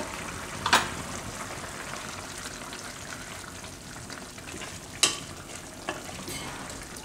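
Spiced tomato-onion gravy bubbling at a boil in a kadai, stirred with a spatula. Sharp knocks of the spatula against the pan come about a second in and again about five seconds in.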